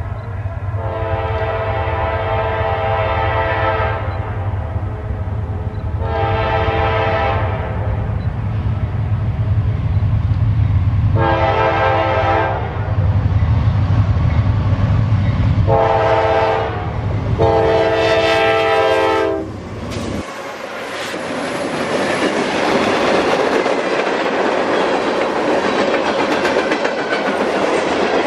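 Diesel freight locomotive approaching and sounding its multi-note air horn in five blasts, the last two close together, over the deep rumble of its engine. About 20 seconds in the locomotive passes, the horn and rumble fall away, and the freight cars roll by with a steady wheel clatter on the rails.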